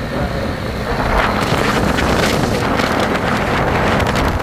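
Wind buffeting the microphone on a moving motorcycle, over engine and road noise; the rush grows louder about a second in.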